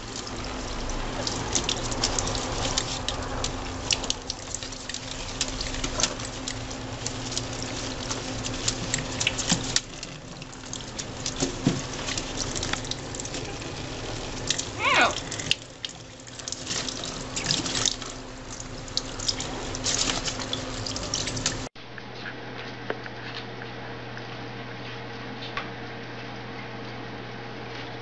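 Tap water running into a stainless-steel sink, with splashing as an Amazon parrot bathes under the stream, and a brief rising squeak about halfway. About 22 s in it cuts to a quieter steady low hum.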